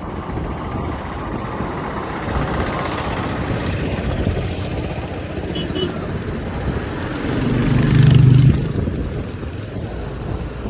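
Steady outdoor rumble of traffic and wind. A motor vehicle passes close by about seven to eight and a half seconds in; its engine tone swells and is the loudest moment.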